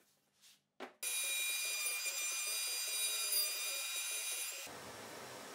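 Router in a router table whining at high speed as a hardwood piece is fed along the fence, with a rapid flutter under the steady high whine. About a second before the end it gives way to a steady hiss.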